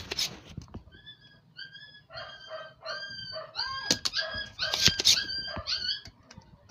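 A dog whining and yipping: a run of short, high calls repeated about every half second, starting about a second in. A few sharp clicks sound over it, the loudest two about a second apart in the second half.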